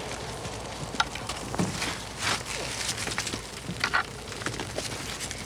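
Wood fire crackling, with a steady hiss and scattered sharp pops, burning over a bed of stones being heated for cooking.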